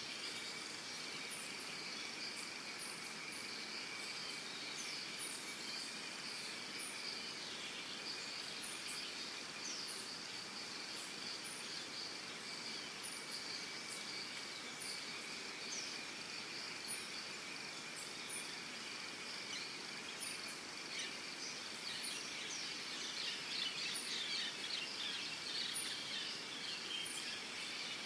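Steady chorus of insects buzzing on two high tones, with a short high chirp repeating about once a second, and birds calling over it, busiest near the end.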